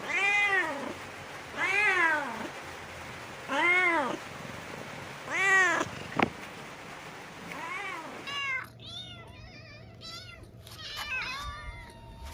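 Cat meowing repeatedly: five loud meows about two seconds apart, each rising then falling in pitch, with a sharp click after the fourth. In the last few seconds the calls turn fainter and shorter.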